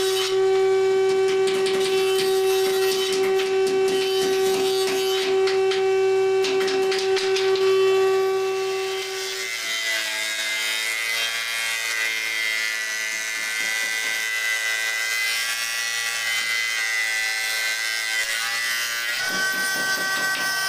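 Jointer (surface planer) running with a steady whine while a wooden board is fed across its cutterhead, with a rough cutting noise over it. About nine and a half seconds in, this gives way to a thickness planer running with a different, quieter steady hum as it planes a board and throws out shavings.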